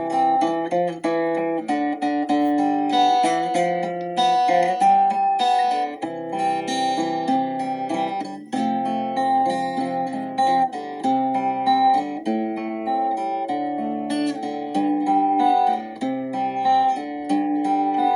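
Instrumental music: plucked acoustic guitar playing a slow melody over held chords.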